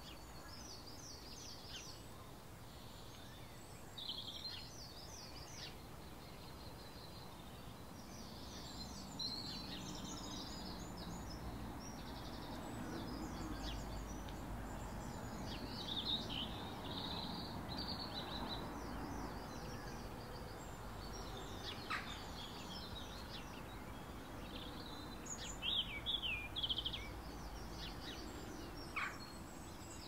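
Garden songbirds singing: short, high twittering phrases and chirps come and go all through, with a few sharper chirps near the end. Beneath them runs a low background rumble that swells in the middle.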